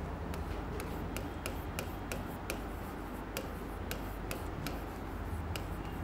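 Stylus writing on an interactive smart board's screen: light taps and rubs of the pen tip, irregular clicks about two or three a second, over a low steady hum.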